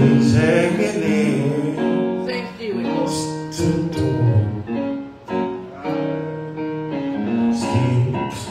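A man singing through a handheld microphone over instrumental backing music, with held notes that waver near the start.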